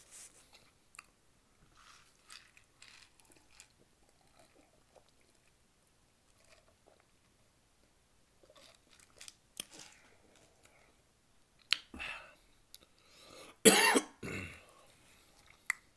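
Soft close-up eating sounds of small clicks and mouth noises, then a man coughing about two seconds before the end, the loudest sound, with a shorter cough or throat-clearing just before it.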